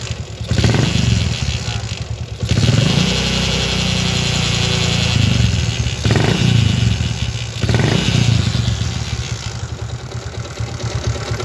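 Yamaha Jupiter MX engine being revved in repeated throttle blips, running rough with a catching, grinding noise from the transmission. It is likened to a transmission gear snagging, and a teardown traces it to a broken shift-drum pin.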